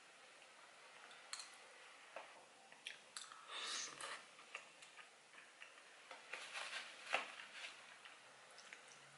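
Quiet eating sounds: a metal spoon ticking and scraping against a ceramic bowl, with a soft mouth sound as a spoonful is taken about three and a half seconds in. A sharper clink of spoon on bowl comes around seven seconds in.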